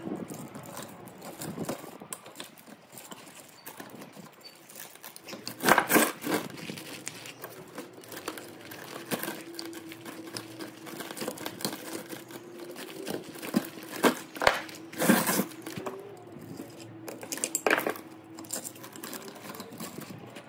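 Burnt copper windings being worked out of an electric motor's stator with hand tools: irregular metallic clinks, knocks and crinkling scrapes, a few of them louder, over a faint steady hum.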